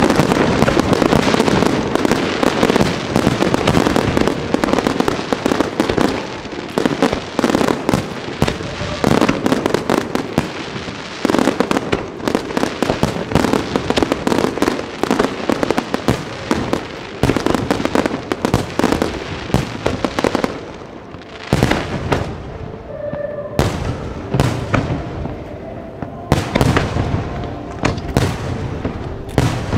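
Aerial fireworks display going off: a dense, continuous run of bangs and crackling shell bursts. It thins out briefly about twenty-one seconds in, then picks up again.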